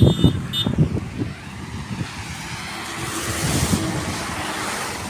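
Road traffic on a wet highway: a vehicle goes by with tyre hiss that swells about three seconds in, over a faint engine hum.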